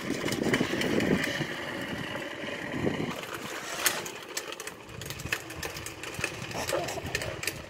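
Small plastic toy truck's wheels rolling on a concrete driveway under a rider, a rattling rumble with scattered clicks that fades as the truck rolls away.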